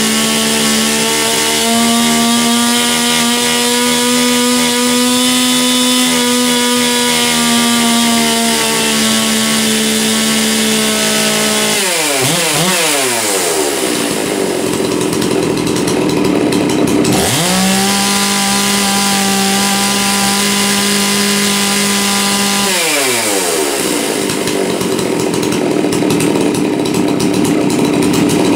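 Stihl MS460 two-stroke chainsaw held at full throttle with no load while its high-speed carburettor screw is adjusted. The high note wavers slightly and drops to idle about twelve seconds in, then the saw is revved back to full throttle at a slightly lower pitch for about five seconds, set a little rich, and falls back to idle.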